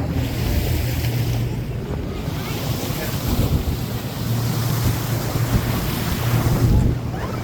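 Boat engine running with a steady low hum, under wind buffeting the microphone and water rushing and splashing against the hull in open-ocean swell.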